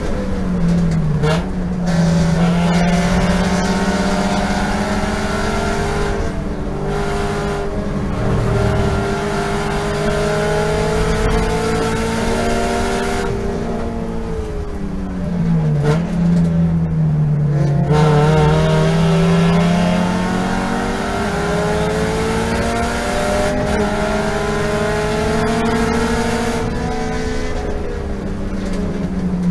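Toyota GT86 cup car's 2.0-litre flat-four boxer engine, heard from inside the cockpit, running hard at high revs. Its pitch dips sharply about a second in and again around sixteen seconds in, then climbs back in long sweeps.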